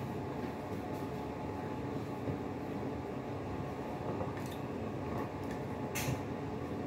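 Steady hum of a fan or kitchen appliance, with a few light clicks of tableware on a plate, the sharpest about six seconds in.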